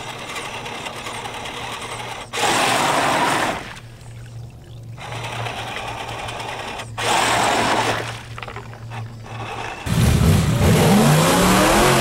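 Electric motors of an RC 4x4 mud truck whining as it churns through mud and water, with two loud bursts of splashing as the tires spin up spray. About ten seconds in, a louder engine sound rising in pitch comes in: a dubbed-in full-size mud truck engine revving.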